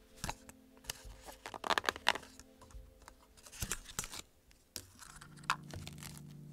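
Scattered clicks and crackles, bunched about two seconds in and again near four seconds, over quiet background music with held notes that change about five seconds in.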